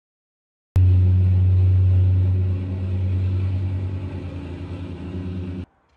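Petrol plate compactor running, with a steady low engine hum and a pulsing vibration. It begins abruptly about a second in, slowly fades, and cuts off suddenly near the end.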